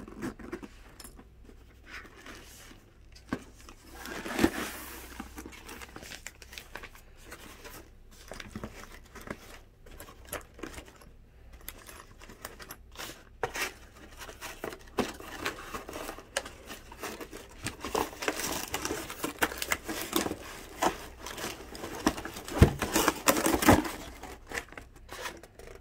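Plastic packaging crinkling and tearing as a boxed tool kit is unpacked by hand, with scattered clicks and knocks of parts being handled. The rustling is busiest near the end, where a few louder knocks stand out.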